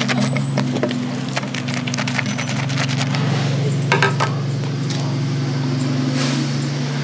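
Straight razor scraping through beard stubble in short crackling strokes, over a steady low hum.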